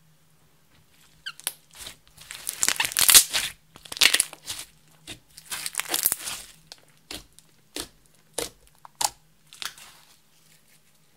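Blue glitter slime, clear slime mixed with eyeshadow and glitter, being squeezed and stretched by hand: dense sticky crackling for several seconds, then about five separate sharp pops as fingers press into it.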